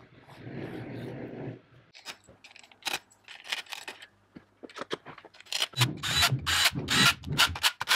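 Hands handling an IAME X30 kart engine's aluminium crankcase and cylinder studs on a metal workbench: soft rubbing at first, then quick irregular metal clicks, taps and scrapes that grow louder and denser near the end.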